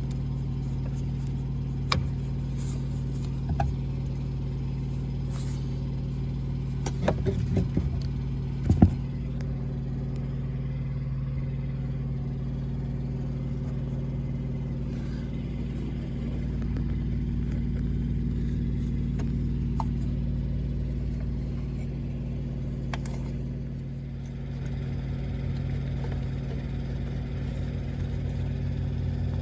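Vehicle engine idling with a steady hum, with a few sharp clicks and knocks from about 2 to 9 seconds in, the loudest near 9 seconds.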